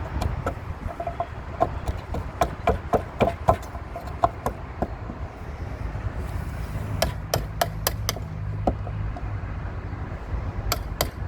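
Hammer knocking on timber in quick runs of sharp blows, about three a second, with pauses between the runs.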